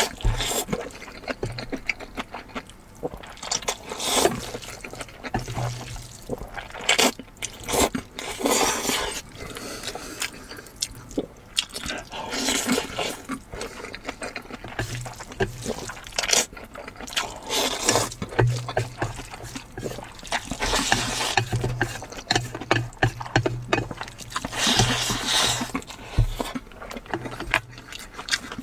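Close-miked eating sounds: wet slurping and chewing of noodles, coming in irregular bursts with soft clicks of the mouth.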